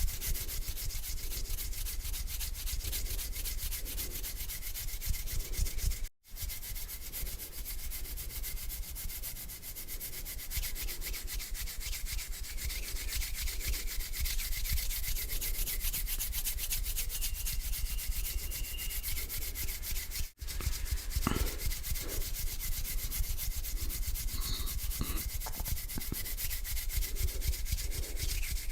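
Hands rubbing together slowly, a close-miked dry swishing, broken twice by a momentary silence.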